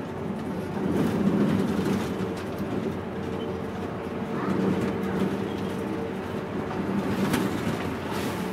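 City bus driving, heard from inside: the engine and drivetrain hum steadily over road noise, swelling a little now and then. A faint short squeak comes about halfway through.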